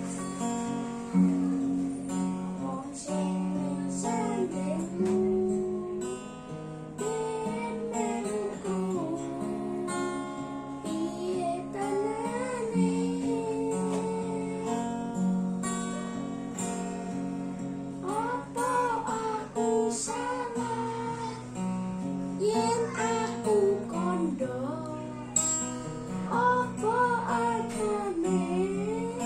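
A voice singing a slow melody with vibrato over strummed acoustic guitar.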